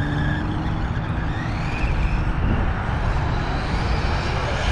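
Electric RC monster truck running, its motor whining and rising in pitch about two seconds in as it speeds up, over a steady low rumble.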